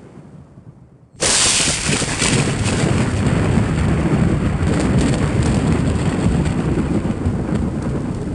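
Thunderstorm sound effect: a fading hiss dies away, then about a second in a thunderclap breaks in suddenly and rolls on as a long, loud rumble over heavy rain.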